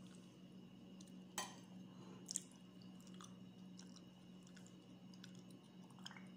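Quiet eating sounds: faint chewing and a spoon clicking against a bowl, sharpest twice in the first half, over a steady low hum.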